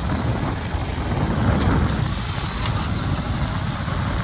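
Motorbike riding along: engine and road noise mixed with wind buffeting the microphone, a steady rumble that rises and falls slightly.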